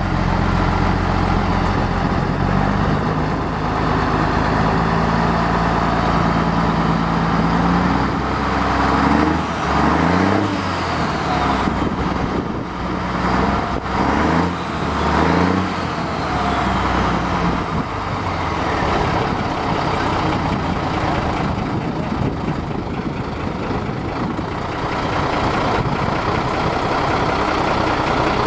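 Big diesel truck engine running steadily, then revved up and down several times partway through before settling back to a steady run.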